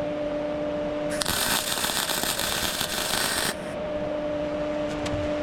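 Arc welding: a single weld run of about two seconds starting a little over a second in, a loud steady crackle over a constant low hum.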